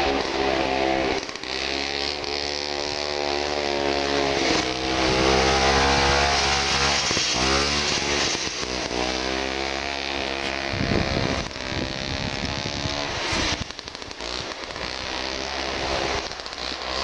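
Vintage Ski-Doo two-stroke snowmobile engine running under way, its pitch rising and falling again and again with the throttle. It drops off about two-thirds of the way through and picks up again near the end.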